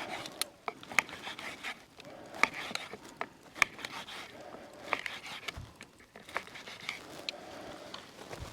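Sharp, irregular clicks and light clatter of cooking utensils against a frying pan and food as the steak and noodles are handled, about one or two clicks a second.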